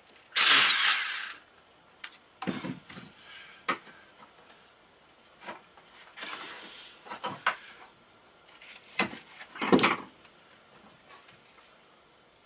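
Hand tools and small metal parts being handled during engine disassembly: a loud short rasp about half a second in, then scattered clicks, knocks and rattles, with two louder knocks near the end.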